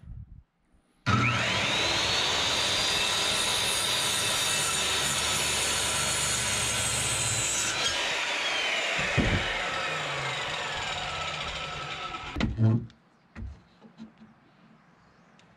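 Circular saw starting with a rising whine as the motor comes up to speed, then cutting through a wooden board for about seven seconds. When the trigger is released the blade spins down with a long falling whine, followed by a couple of knocks.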